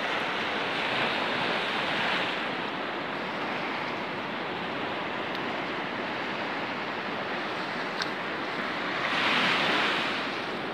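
Surf washing up the beach at the shoreline: a steady hiss of breaking water that swells twice, most loudly near the end.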